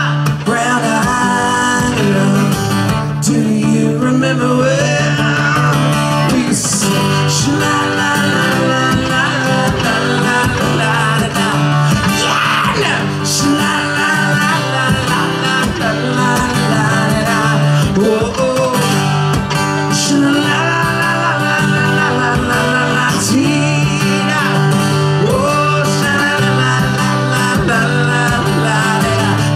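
Acoustic guitar strummed live, with a man singing over it at a steady loud level.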